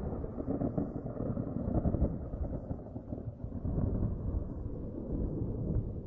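Thunder rumbling in a long, low roll that swells about two seconds in and eases off near the end.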